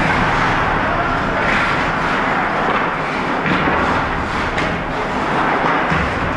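Steady, loud rushing noise of an ice hockey game in a rink, with no distinct single event standing out.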